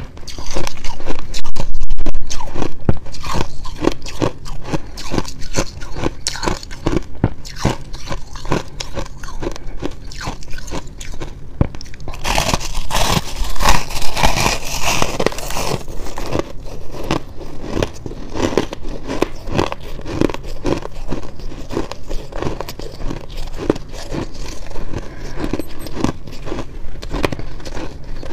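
Shaved ice being bitten and chewed close to a clip-on microphone: a continuous run of sharp crackling crunches, loudest early on, with a denser, hissier crunch of a big bite about halfway through.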